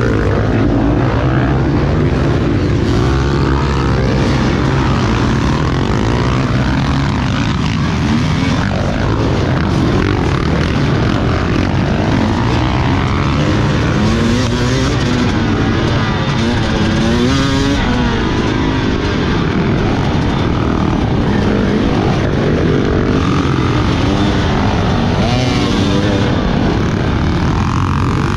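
Enduro dirt bike engines running and revving, a loud steady drone with several overlapping rises and falls in pitch.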